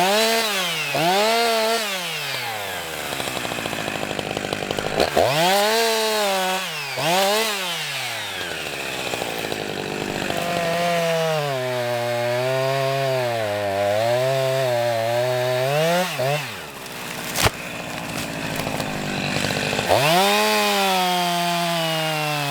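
A small engine revving up and back down in several short swells, then running for a few seconds at a lower, wavering pitch, with one sharp click, before revving up again and slowly falling off near the end.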